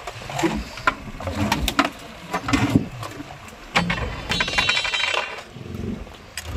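Irregular sharp clicks, knocks and clatters as a hooked eel and its line and tackle strike the fibreglass fish box on a boat's deck, with a quick rattling flurry a little past four seconds in.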